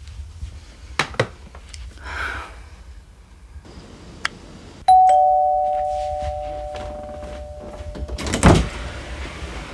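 Wall-mounted electric doorbell chime striking its two notes, ding-dong, a higher tone then a lower one, each ringing out and fading over about three seconds. A couple of light clicks come before it, and a loud thump near the end.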